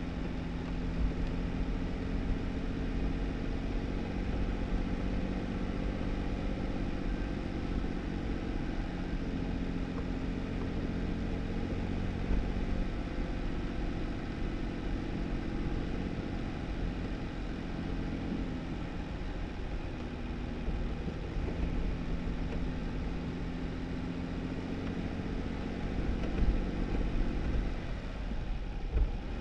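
2018 Jeep Wrangler driving: a steady engine hum over low rumble and noise from the tyres on a snowy dirt road, with a few louder bumps near the end.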